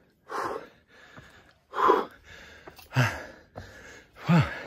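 A man breathing hard, with four heavy out-breaths about a second apart, the last two voiced and falling in pitch like a groan. He is winded from a long stair climb.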